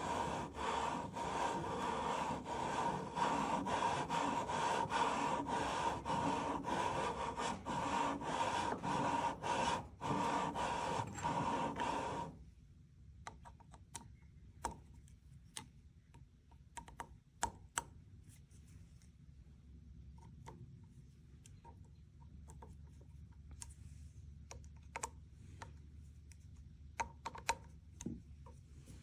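Scope-ring lapping bar coated in lapping compound, worked back and forth through the rifle's scope rings: a rapid, even run of gritty metal-on-metal scraping strokes. The strokes stop abruptly about twelve seconds in. After that there are only scattered light clicks and taps from handling the tool and rifle.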